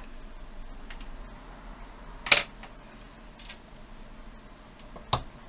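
Two sharp clicks about three seconds apart, with a fainter scrape between them, as small tools and parts are handled at the VCR head drum while its top clamp is undone.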